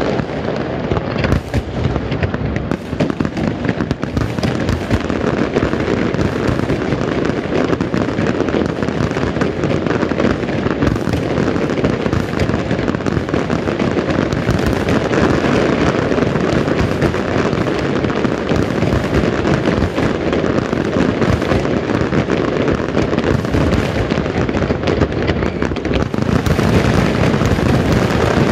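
Fireworks display: a dense, continuous barrage of aerial shells bursting in rapid overlapping bangs, growing louder near the end.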